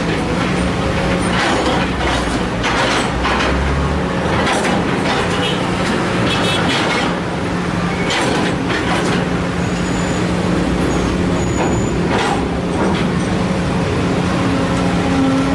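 Sumitomo SH210 excavator's diesel engine running steadily under load, with repeated short clatters and scrapes as soil is dug and dumped into a truck bed.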